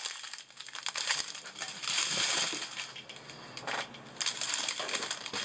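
Strip of small plastic bags of resin diamond-painting drills rustling as it is handled and spread out, with the tiny drills shifting and clicking inside. The handling is loudest about two seconds in and again near the end.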